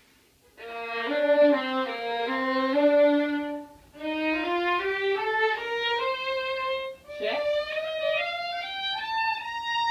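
Solo violin playing a B-flat major scale. A few slow notes around the low B-flat come first, then after short breaks the notes climb step by step up the scale through about two octaves.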